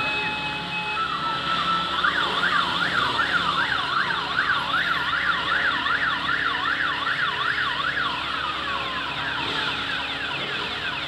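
An emergency-style siren yelping in fast rising and falling sweeps, about three a second, starting about a second and a half in and fading near the end, with motorcycle engines running underneath.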